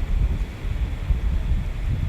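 Wind buffeting the microphone: a low rumble that swells and drops unevenly.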